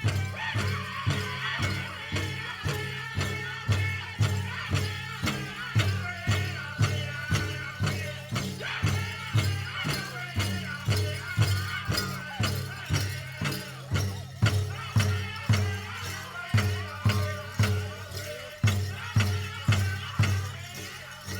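Powwow drum group: a large bass drum struck in a steady, even beat under high-pitched group singing.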